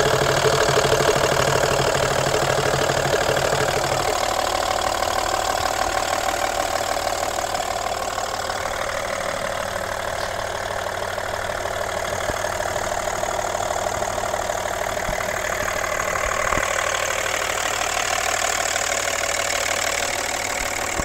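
Audi A6 2.5 TDI V6 turbodiesel engine idling steadily. A low hum in the sound drops away about four seconds in.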